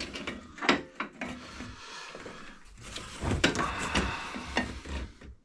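Objects being handled on a workbench: a series of sharp knocks and clicks with scraping and rubbing between them, busiest a little past the middle.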